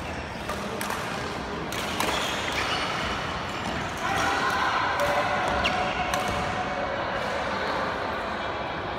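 Badminton rally: rackets striking a shuttlecock with several sharp hits, echoing in a large sports hall, over faint background voices.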